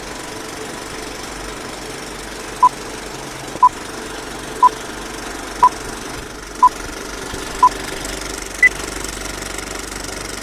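Film-leader countdown sound effect: a steady old film projector rattle, with a short beep once a second six times, then a single higher beep about a second later.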